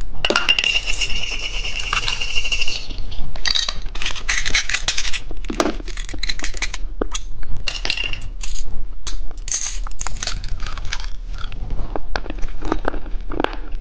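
Small plastic candy toys and packaging being handled: a run of sharp clicks and clinks, with a steady high tone lasting about two and a half seconds near the start.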